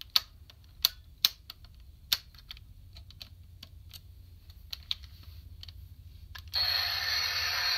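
Hard plastic parts of a DX Kerberios toy robot clicking as they are handled and shifted, with several sharp clicks. About six and a half seconds in, the toy's built-in speaker starts a loud electronic sound effect.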